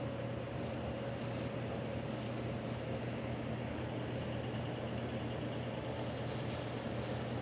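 A steady low engine hum with an even rushing noise over it, unchanging throughout.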